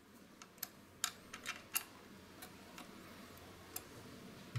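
Faint, irregular clicks of a small hex key working in the steel mounting screws of a motorbike controller, as the screws are driven in and tightened by hand.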